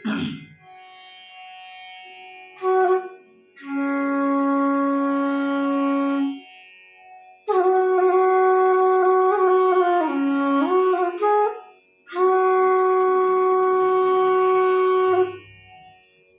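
F-sharp bass bamboo flute (bansuri) played over a tanpura drone tuned to F sharp, being tried for tone and tuning: a short note, then long held notes, one of them bending and sliding down before settling. The tanpura drone is faintly heard in the pauses between notes.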